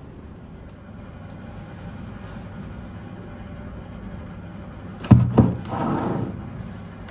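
A jar with a red lid is set down on a wooden desktop, giving two sharp knocks about five seconds in, followed by a brief scraping rustle as it is pushed into place. Otherwise quiet room tone.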